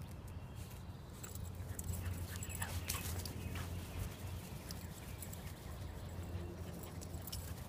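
Puppy scampering about on grass: soft rustling and scattered light taps, over a steady low hum.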